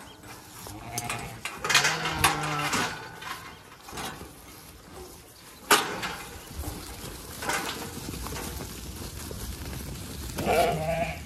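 Zwartbles sheep bleating, a cluster of low calls about two seconds in and another near the end. A sharp metallic clank about halfway through, with lighter rattles, comes from the galvanised hurdle gate being opened as the flock pushes through.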